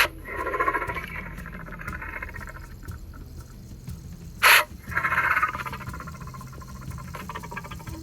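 A lion sneezing: one sharp, explosive blast right at the start and another about four and a half seconds in. Each is followed by about a second of rough, pulsing sound.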